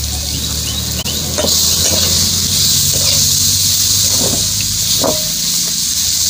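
Chopped green chillies, garlic and crushed peanuts sizzling in oil in a hot metal kadhai, with a steady hiss that grows louder about a second and a half in. A few short scrapes of a metal spatula on the pan as the mix is stirred.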